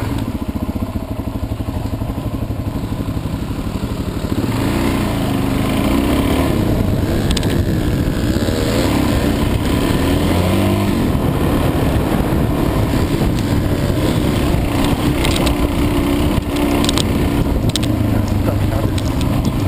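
Dirt bike engine running hard, heard from on the bike. The revs rise and fall repeatedly as the rider works the throttle and gears, with a few sharp knocks from the bike over the rough trail.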